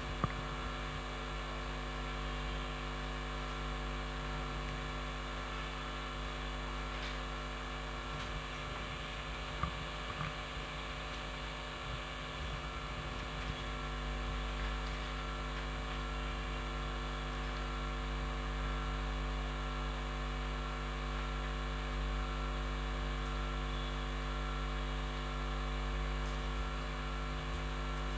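Steady electrical mains hum, a stack of constant tones, with a few faint clicks about a third of the way in.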